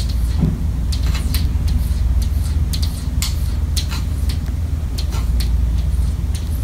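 A cat's paw and claws tapping against mirror glass: light, sharp clicks every half second or so, over a steady low rumble.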